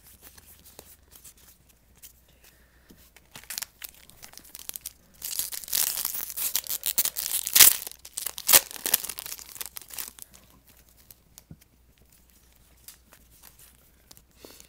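Foil trading-card pack being torn open and its wrapper crinkled, with a burst of tearing and rustling about five seconds in that dies back to faint crackles after ten seconds.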